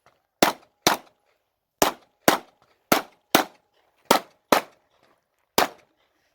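Glock 45 9mm pistol firing quickly in pairs: four double shots with about half a second between the two shots of each pair, then one more shot near the end, each crack trailing off in a short echo.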